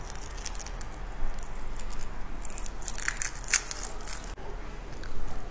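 Close-up eating and food-handling sounds: a run of sharp crackling, crinkling clicks, thickest about three to four seconds in.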